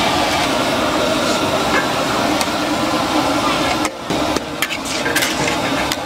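Rice vermicelli frying in a large aluminium wok with a steady sizzle, then, about four seconds in, metal spatulas clanking and scraping against the wok as the noodles are stir-fried with chillies.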